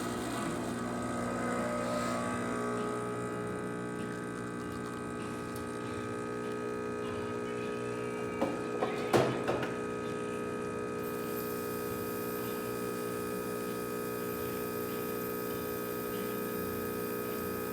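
Rancilio Silvia espresso machine's vibratory pump running steadily through a test brew, a constant buzzing hum under brew pressure, with a couple of light knocks about nine seconds in.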